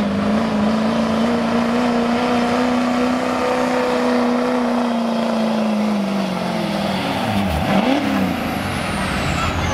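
GMC Duramax diesel pickup engine at full throttle under load, pulling a sled: a steady high-revving drone that sags in pitch about six seconds in as the truck slows, drops off sharply, then revs up briefly once more. A thin high whistle glides down in pitch near the end.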